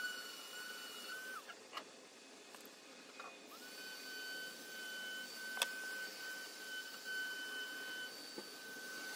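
A steady high-pitched whine with overtones fades out a little over a second in and comes back about a second and a half later. Over it come a few sharp clicks of hand tools and wire as the bonsai's branches are bent and worked with pliers, one click loud about halfway through.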